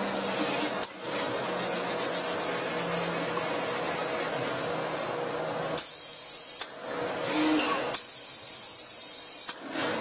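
Steady hissing background noise with a faint hum, dropping out briefly a few times.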